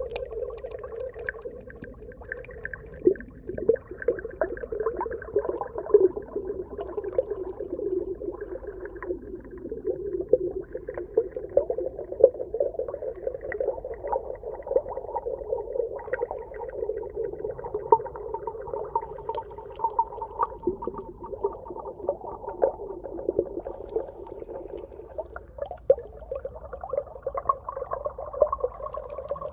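Underwater ambience: a steady, muffled watery rumble with frequent small pops and crackles throughout.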